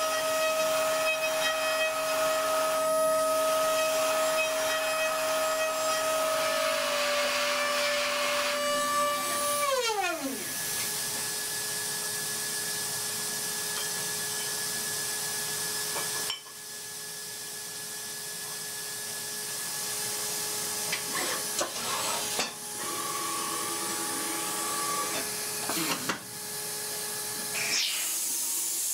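Steady high mechanical whine of a machine-tool motor over a hiss. The pitch steps down slightly about seven seconds in, then falls away quickly as it winds down around ten seconds in. After that a different steady whine and hiss carry on, with a few abrupt breaks.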